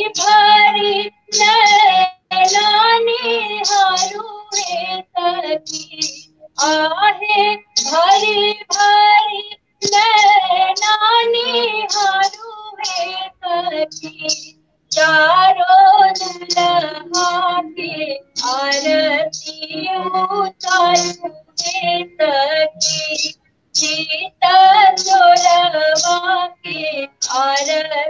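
A woman singing a Bhojpuri wedding folk song in phrases with short breaths between them, accompanying herself on a harmonium with low held notes.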